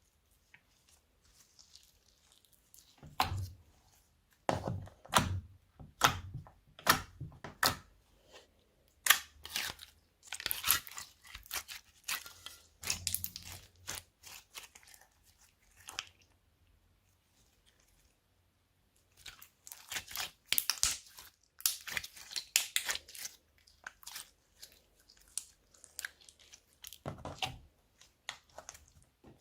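Slime being mixed by hand, squished and stretched, giving sticky crackles and pops in irregular bursts, with a pause of a few seconds in the middle.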